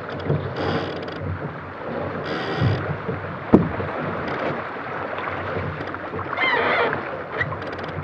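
Wind buffeting the microphone and water rushing along the hull of a Sonar keelboat sailing hard during a spinnaker hoist, with a sharp knock of deck gear about three and a half seconds in.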